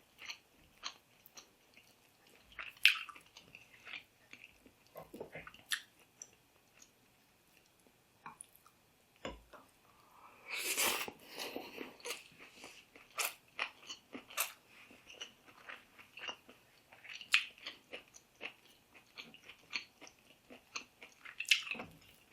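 Close-up eating sounds: chewing and crunching bites of green mango salad and fried fish, in scattered short crunches, with a denser, louder stretch of crunching about ten seconds in.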